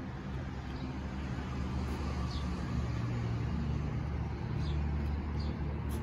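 Toyota 86 GT's 2.0-litre flat-four boxer engine idling steadily, growing slightly louder over the few seconds. A few faint bird chirps sound over it.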